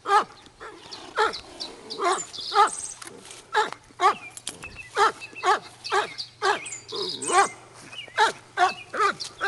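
A dog barking over and over, about two short barks a second, each bark dropping in pitch.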